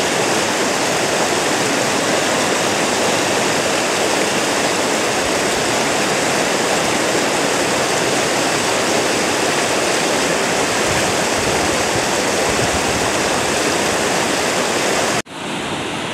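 Fast white-water river rushing over and around boulders: a loud, steady roar of water. About 15 seconds in it cuts off for an instant and comes back quieter and duller.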